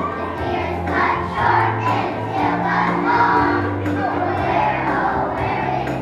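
A group of kindergarten children singing a song together in unison, over instrumental accompaniment with a steady bass line.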